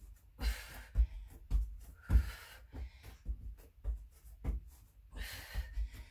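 Hands and forearms thudding softly on a foam exercise mat about twice a second during plank-to-push-up exercises, with three heavy, hissing breaths from the exerciser.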